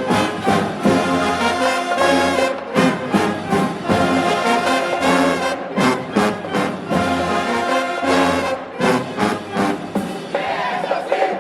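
HBCU marching band brass section (trombones and trumpets) playing a loud, punchy tune over a steady beat of drum hits. About ten seconds in, the low brass and drums drop out and crowd shouting takes over.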